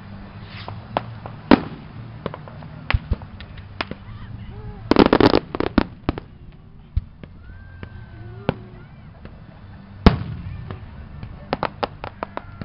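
Aerial firework shells bursting: scattered sharp bangs, a dense volley of crackling reports about five seconds in, one very loud boom about ten seconds in, then a quick run of pops near the end.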